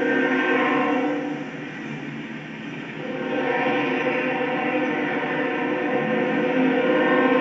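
Locomotive air horn sounding a long, steady chord for the grade crossing as the train approaches. The horn dips about a second and a half in and returns louder about three seconds in.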